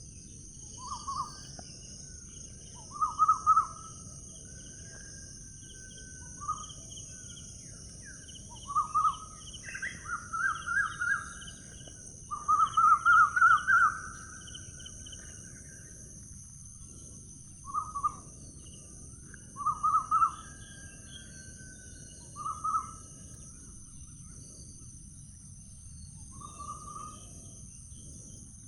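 Birds calling over a steady high hiss: short bursts of quick repeated notes every few seconds, the longest and loudest burst about halfway through.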